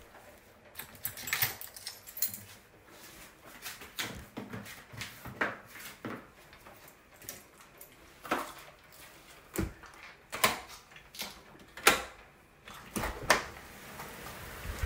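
A series of separate clicks, knocks and rustles from keys and a front door being unlocked and opened. Heavy rain starts to hiss near the end.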